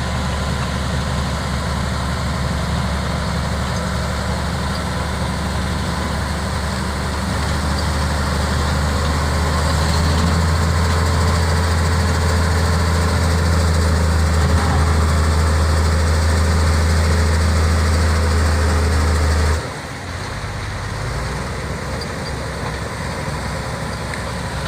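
Bulldozer's diesel engine running with a steady low drone. It gets a little louder about a third of the way in, then drops suddenly to a quieter running sound near the end.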